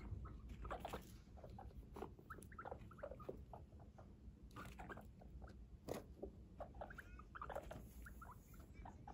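Guinea pigs making many short, faint squeaks and chirps as they move about, with a few soft knocks.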